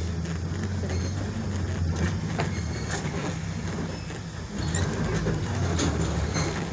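Steady low engine drone and road noise of a moving road vehicle, heard from inside the cabin, with a few light rattles.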